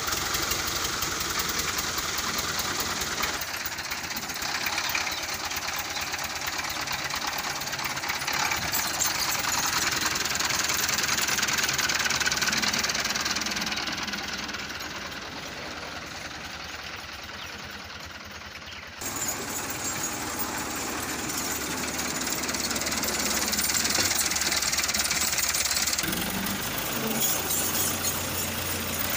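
Fiat tractor's diesel engine running with a fast, clattering knock. The sound changes abruptly a few times, dipping quieter in the middle.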